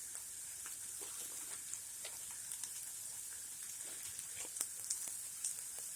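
Onions frying in a pan: a steady sizzle with scattered small crackles.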